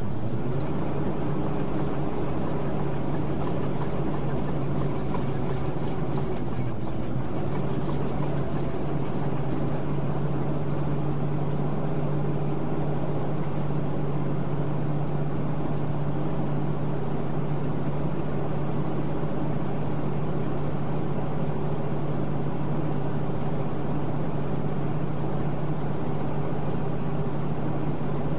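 Truck engine running steadily under load, heard from inside the cab, with tyre noise on a gravel road, while the truck is pulled up a hill on a tow strap. The engine note shifts slightly about six or seven seconds in and then holds steady.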